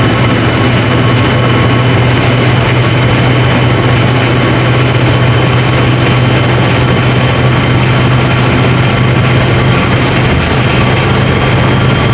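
Diesel engine of a Mercedes-Benz OF 1721 BlueTec 5 bus running at a steady, unchanging speed with a strong low hum.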